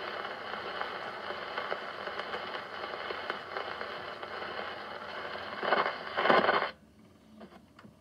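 Needle running in the groove of a shellac 78 rpm record on an acoustic gramophone after the song has ended: steady surface hiss and crackle. Near the end come two louder scratching swells, and the sound then cuts off suddenly as the soundbox is lifted off the record, leaving a few faint clicks.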